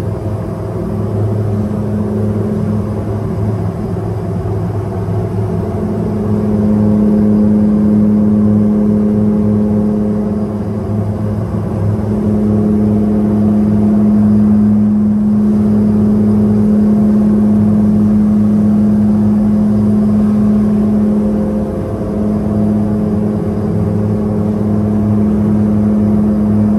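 Steady low mechanical hum at a constant pitch, growing louder about six seconds in and dipping briefly twice.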